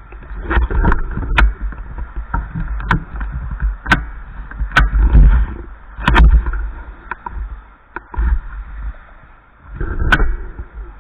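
Wind buffeting the microphone in gusts, with scattered sharp clicks and knocks.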